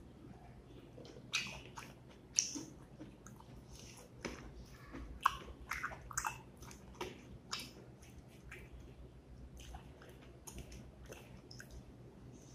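Close-up eating sounds: irregular wet clicks and squelches of fingers mixing and gathering rice with dal and beef curry on a plate, along with chewing.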